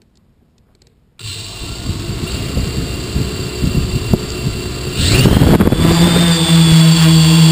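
FPV hexacopter's electric motors and propellers starting suddenly about a second in and running up unevenly, then louder at lift-off about five seconds in and settling into a steady pitched hum, heard from the craft's own camera.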